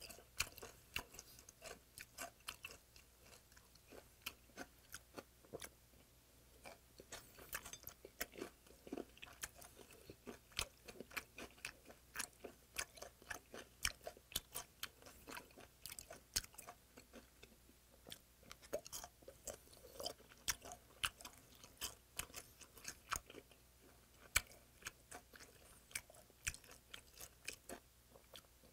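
Close-up chewing of spicy raw stingray salad, with crisp, irregular crunching clicks, several a second, as the firm stingray flesh and vegetables are bitten and chewed.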